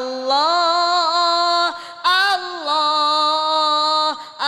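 A woman's voice chanting "Allah" in dhikr through a microphone, drawing the word out in two long, wavering held notes with a short break between.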